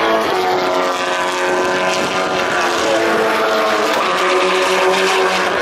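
Turbocharged rallycross race car engines running hard around the circuit, several at once, their pitch shifting up and down as the drivers accelerate and lift.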